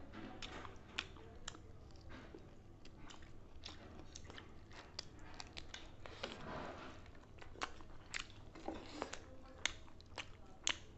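Close-up sounds of people chewing and biting food, with irregular short clicks and crunches.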